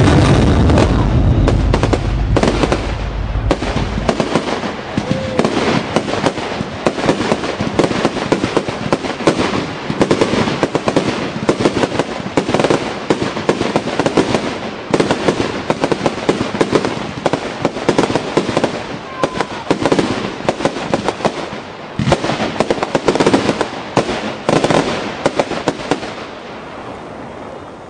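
A fireworks display: a dense, rapid barrage of crackling bursts and bangs from shells going off overhead, with heavy low booms in the first few seconds, dying away near the end.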